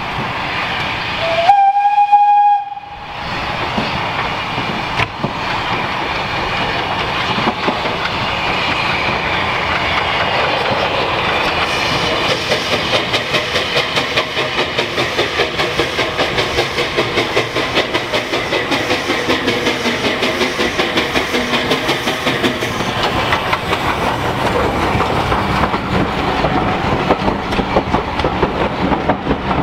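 A steam locomotive whistle gives one short, loud blast about two seconds in. Then a small steam tank engine and its train approach with a building rumble, and as the engine and coaches pass close by there is a regular rhythmic clatter of wheels and running gear.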